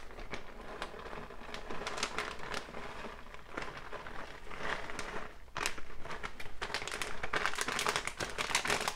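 Plastic bag of shredded cheddar cheese crinkling as it is shaken and tipped to pour the cheese, busier and louder from about halfway through.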